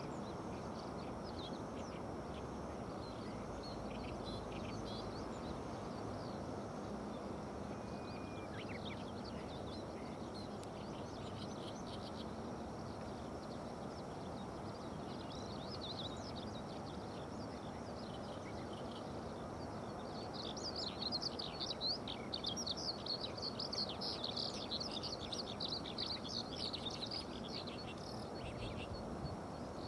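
Small birds chirping over a steady low background rush, with a busy spell of rapid chirping about two-thirds of the way through.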